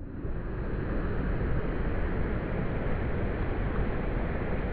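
Steady rushing of creek water, a constant full hiss with no pauses or separate events.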